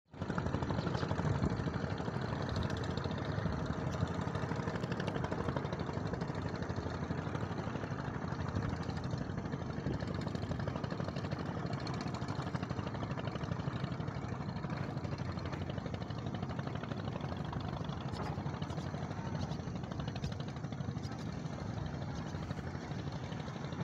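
Motorboat engine running steadily at an even pace, a fast, regular firing with no change in speed.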